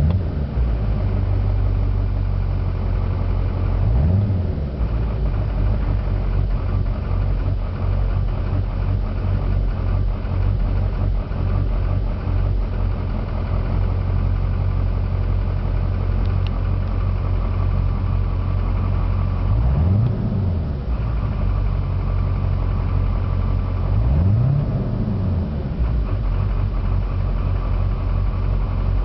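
Duramax 6.6-litre V8 turbodiesel in a 2004 GMC truck idling, with a rough idle that the owner cannot explain. It is revved briefly three times, about 4 seconds in and twice more near 20 and 24 seconds, each time rising and falling back to idle.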